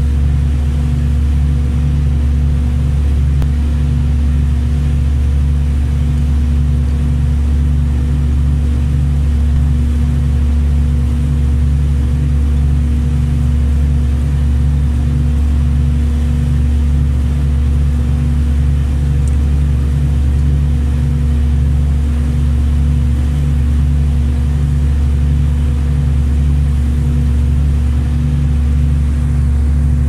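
Ferry's marine diesel engine running steadily under way: a loud, deep drone with a steady hum and a regular low pulsing.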